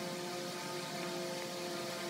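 A steady hum with several held tones over a hiss, like a machine running nearby.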